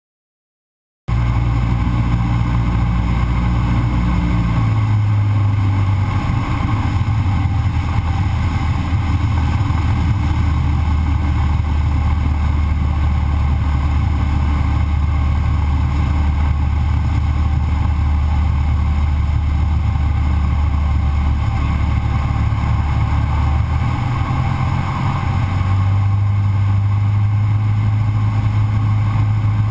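Cessna 152's four-cylinder Lycoming piston engine and propeller droning steadily in flight, starting abruptly about a second in. The engine note steps down about four seconds in and rises again near the end, as power is reduced and then added.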